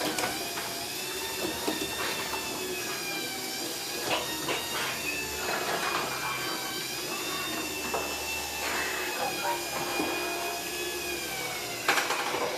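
Chamberlain belt-drive garage door opener lowering the overhead door: a steady motor whine with scattered clicks and rattles. A few louder knocks come near the end, and then the motor cuts off.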